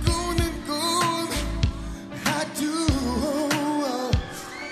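Male lead vocalist singing a Korean pop ballad-style dance song over its backing track, with held, gliding sung notes and a low kick drum underneath.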